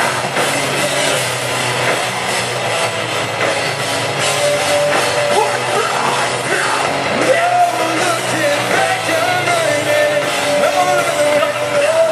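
Live rock band playing loud, with distorted electric guitars, bass and a drum kit, and a voice singing over it; the sung line stands out more in the second half.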